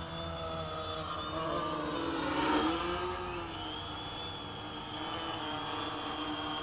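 Quadcopter in flight: the steady buzz of its propellers and motors, shifting in pitch as the throttle changes, and loudest about two and a half seconds in as it passes close.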